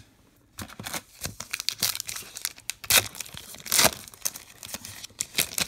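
The foil wrapper of a Topps Star Wars trading card pack is torn open and crinkled by hand. It makes a quick run of crackling rips, loudest near the middle.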